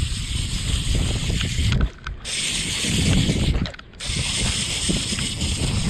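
Spinning reel being wound in, its gears and rotor turning with mechanical clicking, under wind noise on the microphone. The sound drops away briefly twice, about two and four seconds in.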